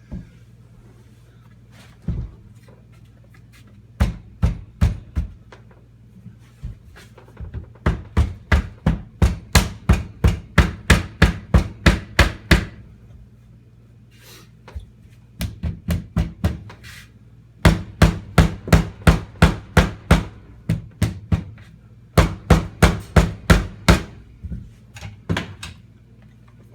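Hammer blows on tongue-and-groove hardwood floorboards as a board is knocked into place. The blows come in quick runs of about three a second, with pauses between runs.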